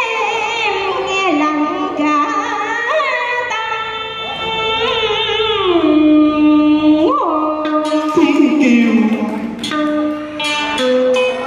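Vietnamese cải lương singing accompanied by a plucked electric guitar. A woman's voice holds long notes with heavy vibrato and slides between pitches, and a man's voice takes the line near the end.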